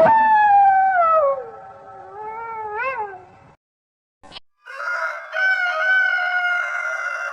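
Domestic cat meowing in two long, drawn-out calls. The first slides down in pitch and ends with a rising wobble; the second, after a short pause, is held at a steady pitch.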